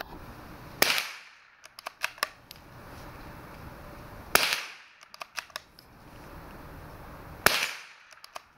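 Three shots from an SDM 98-K .22 LR bolt-action rifle, a Mauser 98 copy, about three seconds apart. Each shot is followed by a quick run of clicks as the bolt is worked to eject the spent case and chamber the next round.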